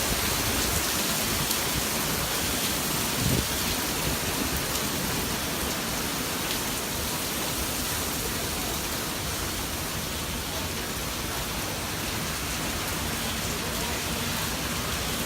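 Hurricane rain falling heavily in a steady, even hiss, with a brief low thump about three seconds in.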